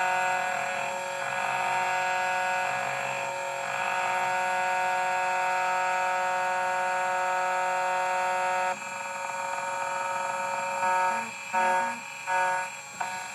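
2M2 Tank II Pro CNC key cutting machine milling a Hyundai TOY40 key blank: a steady high whine for about nine seconds, then quieter, broken by several short loud bursts near the end as the cutter moves on.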